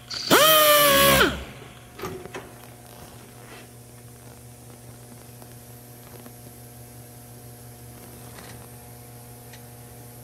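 A power drill runs in one burst of about a second, spinning up and winding down. A steady electrical hum follows, with a few faint clicks.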